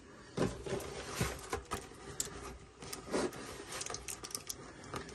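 A cardboard toy box being handled and worked open with a small folding pocket knife: a run of scattered light clicks, scrapes and rustles.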